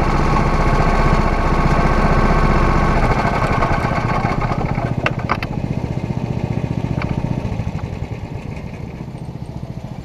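Rental go-kart engine idling close by, then dying away about halfway through, leaving a lower, weaker rumble. A few sharp knocks near the middle as the driver climbs out of the kart.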